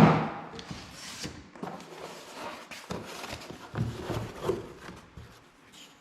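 A single loud thump, then continuing rustling, crinkling and small knocks of packaging as ceiling fan parts are unpacked and handled.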